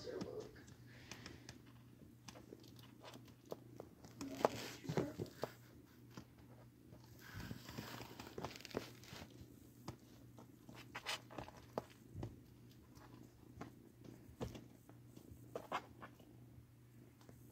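Foster kittens playing and scuffling in a cardboard enclosure: faint, scattered taps, scratches and rustles of small paws on cardboard and toys, with a few busier patches of scuffling.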